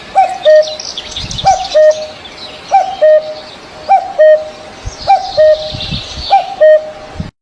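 A bird repeats a loud two-part call six times, about once every 1.3 seconds: a short hooked note, then a held lower note. Other small birds chirp high in the background, and the sound cuts off suddenly near the end.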